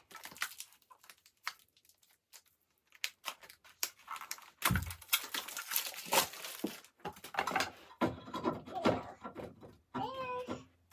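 Small objects and packaging being handled: rustling and crinkling with many small clicks and knocks, busiest about five to seven seconds in.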